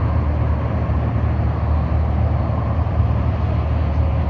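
Steady low rumble of idling vehicle engines, with a faint hiss of traffic above it.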